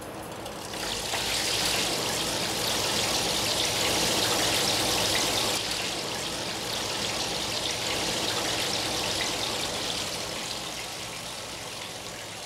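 Steady splashing and trickling of water as the nitinol wire loops on a spinning heat-engine wheel sweep through its hot and cold water baths, growing louder about a second in.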